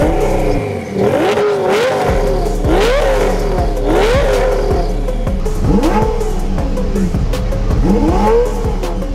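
Heffner twin-turbo 2004 Lamborghini Gallardo's V10 being free-revved in neutral, a series of quick blips that rise and fall one every second or two.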